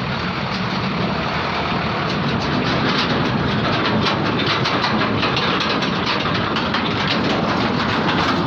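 Hino 500 diesel truck with a flatbed semi-trailer driving slowly past close by: engine running under a steady rush of tyres crackling over loose gravel, loud the whole time the cab and trailer go by.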